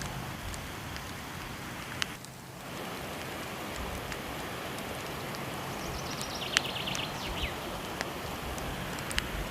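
Steady rushing of falling water with a wood fire crackling over it, giving a few sharp isolated pops.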